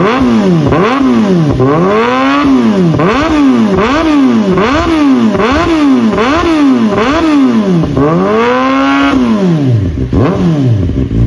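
Kawasaki ZX-4RR 399 cc inline-four engine revved in quick throttle blips, its pitch climbing and falling about one and a half times a second. Near the end it is held at a longer, higher rev, then drops back down.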